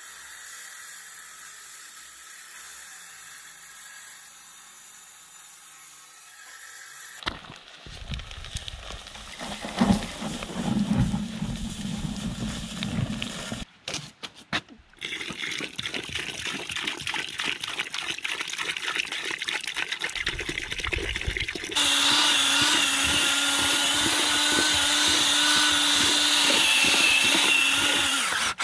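Water poured and sloshing into a bucket of cement mix, then, about three-quarters of the way through, a DeWalt cordless drill with a mixing paddle starts and runs steadily at one pitch, churning the mix in the bucket.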